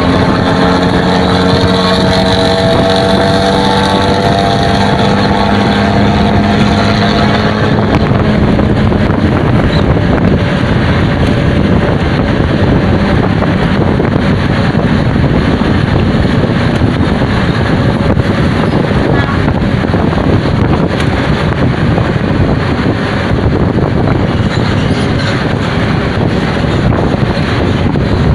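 Diesel bus fitted with a 'ngorok' snoring exhaust, running loud under power: its engine note rises slowly over the first eight seconds or so, then gives way to a loud, even rush with no clear note.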